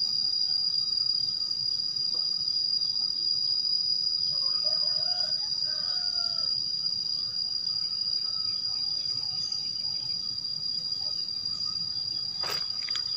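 Insects droning outdoors: a continuous, steady, high-pitched trill with no breaks. Faint bird calls come in about four to six seconds in, and there is one sharp knock near the end.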